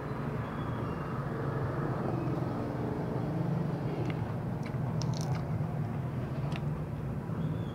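A steady low hum, with a few short crisp crackles from lettuce leaves being handled and folded, about four to seven seconds in.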